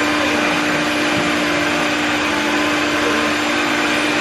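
Electric stand mixer running steadily, its motor humming and its whisk beating egg whites for meringue in a stainless steel bowl.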